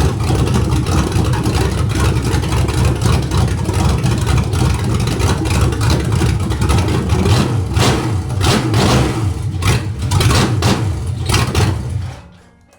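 Rebuilt 1973 Chevrolet 350 small-block V8 with a big cam, running at its cold idle speed after a half-turn adjustment of the cold idle screw. It stops about twelve seconds in. The owner judges that the cold idle speed could use a little more.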